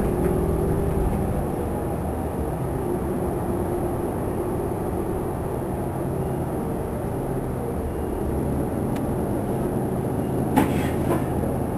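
Interior sound of a 2009 New Flyer DE40LF diesel-electric hybrid bus on the move. Its Cummins ISL diesel and Allison EP40 hybrid drive hum steadily over a low road rumble. A couple of sharp knocks or rattles come near the end.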